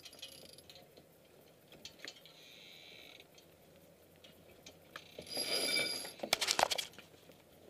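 Deck and rigging noises aboard a J/30 sailboat under spinnaker: a short soft hiss, then a louder rushing sound about five seconds in, followed by a quick run of sharp clicks.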